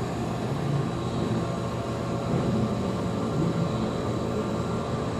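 Steady low indoor rumble and hum, like building ventilation or tank pumps, with a faint high whine over it.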